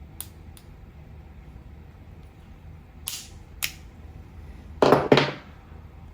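A piece of the micro drone's plastic frame being cut to make room for the battery: four light clicks, then two loud, sharp snaps close together near the end.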